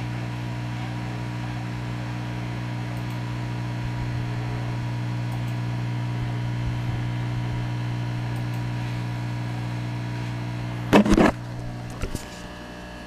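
A steady low hum with a few fainter higher tones, then a brief loud knock and rustle of the camera being handled about eleven seconds in, after which the hum is quieter.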